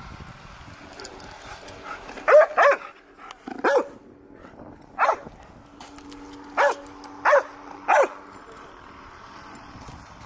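Search-and-rescue dog barking: about seven short, sharp barks, a pair then single ones, spread over several seconds.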